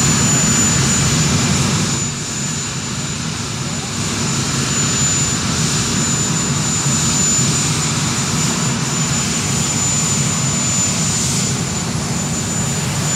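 Aircraft turbine engines running on an airport apron: a steady high whine over a continuous low rumble.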